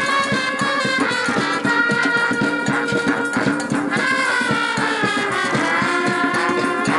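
Brass band music with a quick, steady beat under held horn notes; the horns slide down together a little past the middle.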